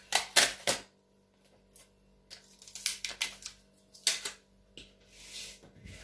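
Irregular light clicks and knocks of plastic plant pots being handled on a countertop, with a brief scraping slide about five and a half seconds in.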